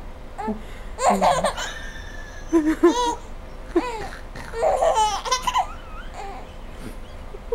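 A baby laughing in several bouts: about a second in, around three seconds, and again around five seconds, in a high, gliding voice.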